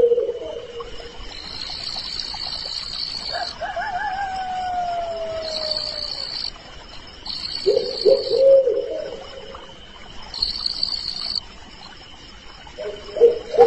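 Crickets trilling in repeated bursts of about a second each, with a few lower animal calls among them, including one long falling call about four seconds in.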